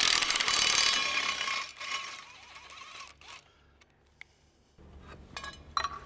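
Compact cordless impact driver running a bolt out of a wooden aircraft propeller's hub, with a fast mechanical rattle for about two seconds before it trails off. Near the end, a few light clicks as the freed hub and propeller are handled.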